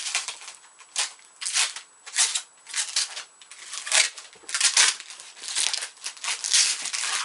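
Protective plastic film and bag being peeled and pulled off a new computer monitor: a run of crinkling and rustling bursts.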